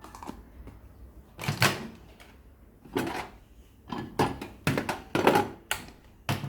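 About a dozen irregular knocks and clicks, starting about one and a half seconds in and bunching together in the second half: a container being handled into a microwave oven and the oven's door and controls being worked.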